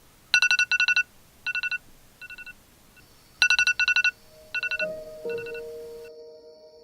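Electronic intro sound effect: rapid trains of high beeps, all on one pitch, in short groups, the pattern played twice, then a held low synthesized tone about two-thirds of the way in that slowly fades.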